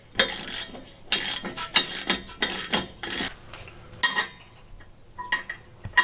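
Hand socket ratchet clicking in about five quick strokes as it turns a brass reducer fitting into the bus's air tank, followed by a few sharp metallic knocks.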